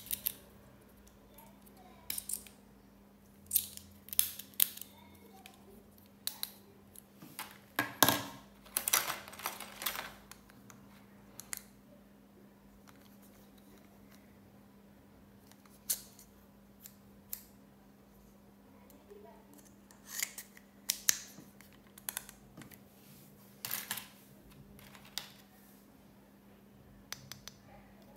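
Scattered sharp plastic clicks and taps as small stationery is handled: a mini stapler being clicked and children's plastic-handled scissors being opened and closed. A denser run of clicking and rattling comes about eight to ten seconds in.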